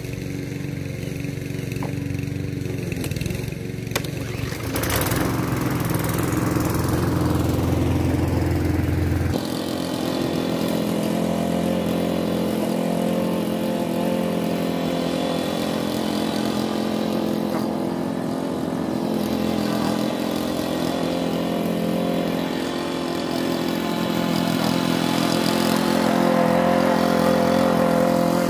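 Walk-behind petrol lawn mower engines running steadily while mowing grass. There is a sharp click about four seconds in, and the engine gets louder after it. At about nine seconds the sound changes abruptly to a second mower running.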